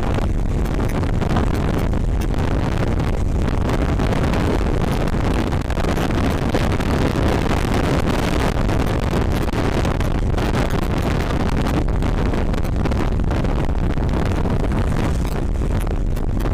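Steady wind rushing over the microphone of a motorcycle-mounted action camera at riding speed, mixed with the Honda CBR150R's running.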